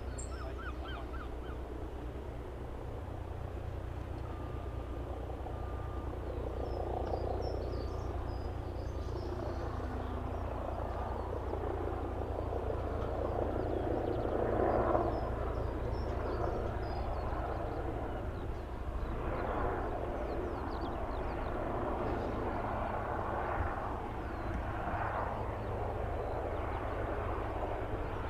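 Leonardo AW139 helicopter heard at a distance, its rotor and engine noise swelling in waves and slowly growing louder as it approaches, over a steady low hum. Small birds chirp now and then.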